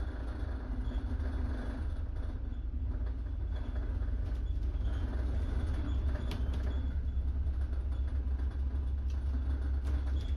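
Steady low engine and road rumble of a double-decker bus heard from inside its top deck as it drives along, with a few sharp clicks about six, nine and ten seconds in.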